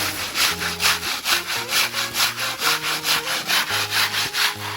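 Rhythmic hand scrubbing, about three back-and-forth rubbing strokes a second, as something is washed by hand.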